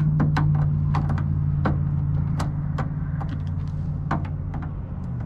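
Power screwdriver's small electric motor running steadily against a stuck screw in a TV casing, with sharp clicks over it, stopping shortly before the end.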